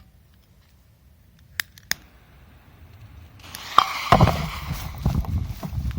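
Two sharp clicks, then the lit fuse of an FP3 firecracker hissing and sputtering, getting louder about three and a half seconds in, with irregular low knocks under it as it burns down toward the blast.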